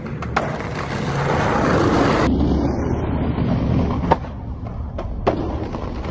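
Skateboard wheels rolling on asphalt, with sharp clacks of the board on the ground: a small one just after the start, the loudest about four seconds in, and two more about a second later.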